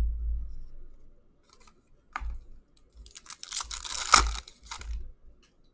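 Hockey card pack wrapper being torn open by hand, a crackly rip from about three seconds in that peaks just after four seconds, after a dull handling thump at the very start.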